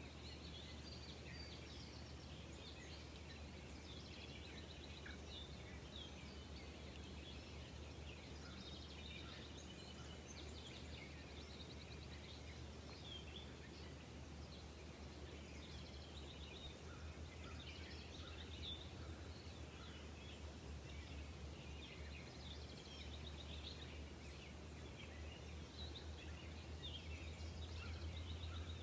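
Faint outdoor ambience: many small birds chirping and trilling in the background over a steady low hum that grows slightly louder near the end.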